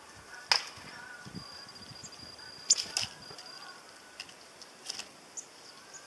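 Sharp, irregular clicks and taps at a plastic-bottle seed feeder as tits peck at the sunflower seeds and hop on and off the plastic and wire perch. Two of the clicks come close together about halfway through, and these are the loudest.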